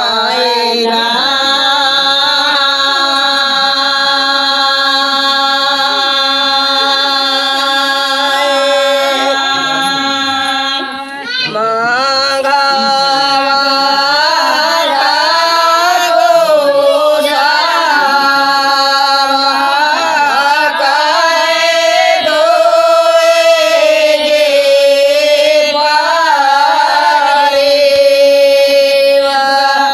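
Women singing a Bagheli wedding song (vivah geet) in voices alone, with no instruments. The first notes are long and held, there is a short break for breath about eleven seconds in, and then the melody moves up and down.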